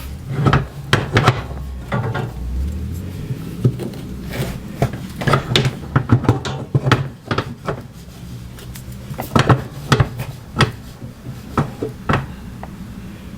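Irregular knocks, clicks and clatter of washer parts being handled and fitted by hand during reassembly of the washer's drive.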